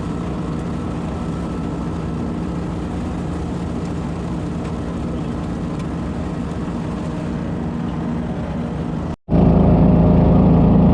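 Engine-powered leaf vacuum running steadily as it sucks up and mulches fallen leaves. It cuts out for a split second about nine seconds in and comes back louder.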